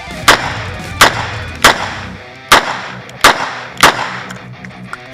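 Ruger GP100 Match Champion revolver firing six shots: three in quick succession about two-thirds of a second apart, a short pause, then three more. Guitar music plays underneath.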